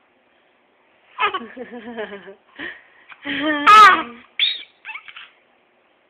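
Eight-month-old baby babbling and laughing in several short bursts, the loudest a pitched laughing squeal about four seconds in.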